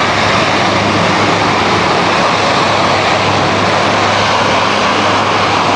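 Large transport aircraft flying past: a loud, steady engine drone with a low hum underneath.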